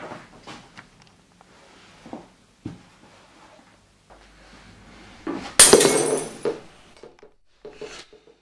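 A drinking glass smashing, a sharp crash about halfway through with shards ringing on for a second. Before it come a few knocks from a cushioned wooden stool being kicked over and set back upright.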